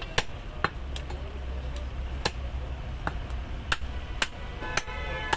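Cleavers striking goat meat and bone on a wooden chopping block: about a dozen sharp knocks at irregular intervals.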